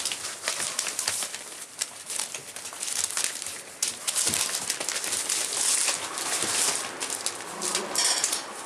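Newspaper on a puppy pen floor crinkling and rustling as rough collie puppies scramble and paw over it, in a busy run of crackles, with a few small puppy sounds mixed in.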